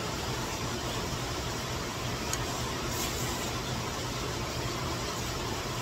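Steady rushing noise of heavy rain and a swollen, fast-flowing stream.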